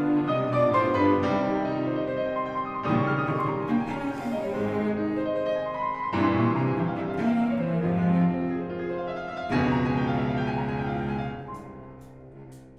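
Background music: a slow classical-style piece for piano and bowed strings, with new chords coming in every few seconds and the music fading near the end.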